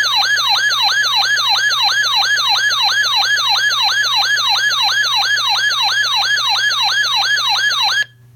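Siren-like electronic alert tone: a falling sweep repeated about four times a second, over a faint steady hum. It cuts off abruptly near the end.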